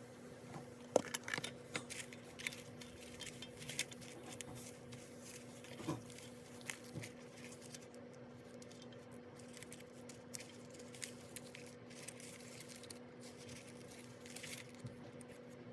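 Paper and stationery being handled on a desk while decorating a planner: scattered light taps, clicks and rustles, busiest in the first few seconds, over a steady low electrical hum.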